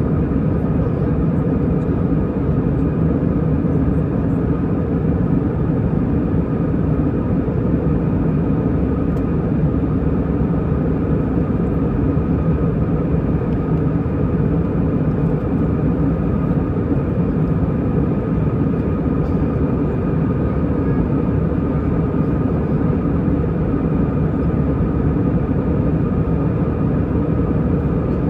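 Steady engine and airflow noise inside the cabin of an Airbus A320, a constant low rumble with a faint steady whine above it and no change in level.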